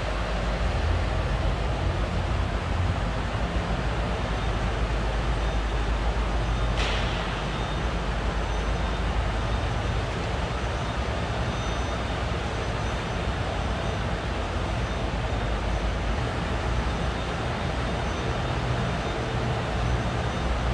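Steady low rumble and hiss of a large factory hall's background noise, with one brief sharp sound about seven seconds in.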